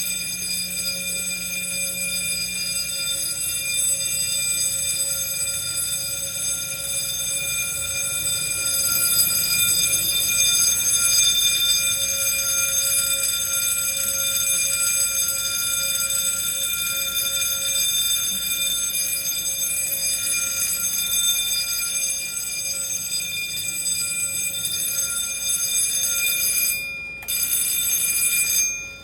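Fire alarm horns on an old Edwards system sounding continuously, one unbroken steady tone. It drops out briefly near the end, returns, then cuts off.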